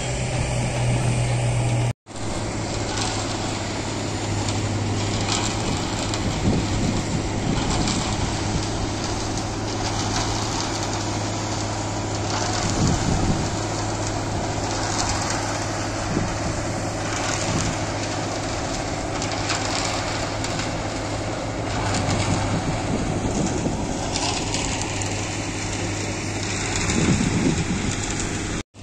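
Diesel engine of a self-loading concrete mixer running steadily, with a constant low hum under a noisy rumble. The sound drops out for an instant about two seconds in.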